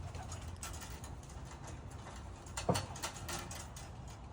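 Homing pigeons moving about the loft trap: scattered light clicks and taps, with one louder knock a little past halfway.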